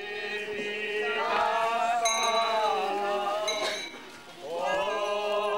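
A group of men's voices singing a slow tune together, with long held notes, breaking off briefly about four seconds in and starting again. Two bright metallic clinks ring out over the singing.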